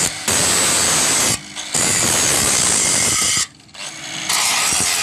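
Angle grinder with a flap disc grinding down the weld bead on a steel hinge, in sustained passes. The sound drops out briefly about a second and a half in, and again for most of a second around three and a half seconds in.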